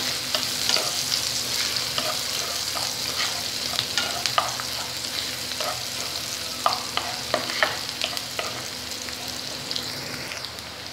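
Chopped onions sizzling in hot oil in a pan, with a spatula scraping and stirring them in short strokes now and then. The sizzle eases off a little toward the end.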